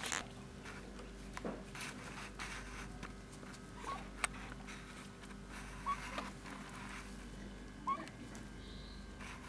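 Faint ambience of animals in a pen: soft scattered rustling and clicks over a low hum, with three brief rising chirps about two seconds apart.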